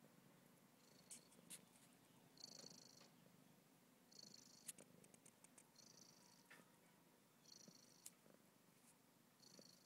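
Domestic cat purring faintly and steadily up close while being stroked, with a soft hiss coming back about every second and a half and a few faint clicks.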